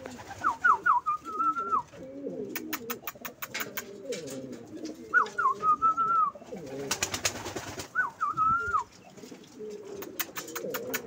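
Domestic pigeons cooing low and continuously. A higher call of a few quick up-strokes and a short warble comes three times, and runs of rapid sharp clicks come several times.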